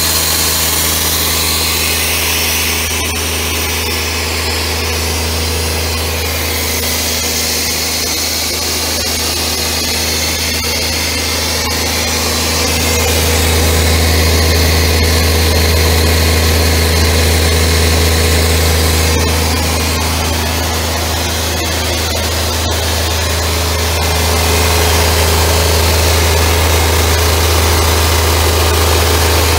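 Atlas Copco XAS37 portable air compressor's diesel engine running steadily, a low even drone with a hiss on top. It grows louder about 13 seconds in, eases around 20 seconds, and swells again from about 24 seconds.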